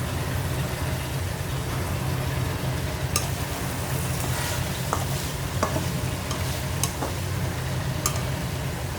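Food frying in a pan while being stirred, with a handful of sharp clicks of the spatula knocking against the pan over a steady low hum.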